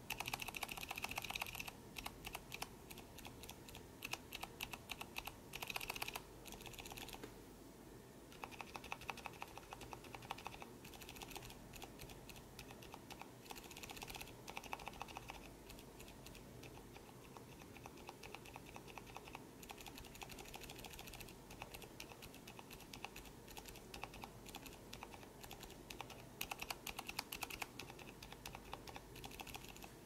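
Lubed silent mechanical keyboard switches (ink Gateron Silent Black and Zilent v2) pressed over and over in quick runs with short pauses, each press a soft, muted clack.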